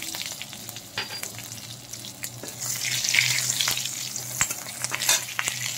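Cumin seeds, bay leaf and green chillies sizzling in hot mustard oil in a metal kadai, with a metal spatula stirring and scraping against the pan in scattered clicks.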